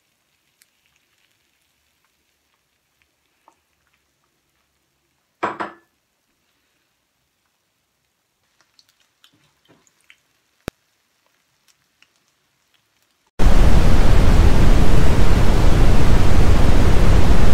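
Loud, even TV-static hiss, a white-noise transition effect, starting abruptly about thirteen seconds in. Before it, only faint ticks, one short loud clatter about five seconds in and a sharp click about ten seconds in.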